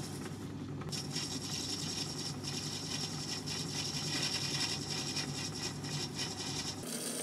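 Myford ML7 hobby lathe running with a steady hum while the turning tool cuts phosphor bronze, a fine hissing cut noise from about a second in. Near the end the cutting noise stops and the running sound changes.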